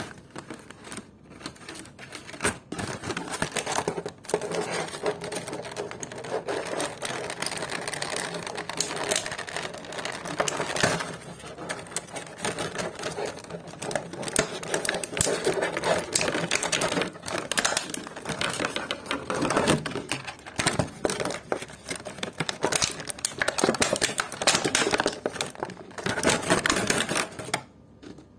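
Thin clear plastic blister tray crinkling and crackling as it is bent and pulled apart by hand, a dense run of irregular clicks and crackles that stops near the end.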